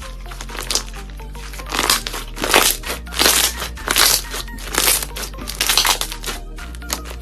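Background music under a run of about six loud crunches, roughly one every 0.7 seconds, with lighter crackling before and after.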